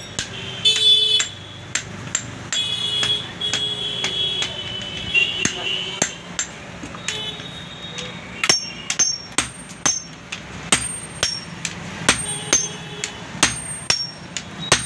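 Hand hammer blows on a red-hot iron dao blade on an anvil, each strike ringing metallically. The blows are irregular at first, then from about eight seconds in settle into an even rhythm of about two a second as a striker's hammer joins the smith's.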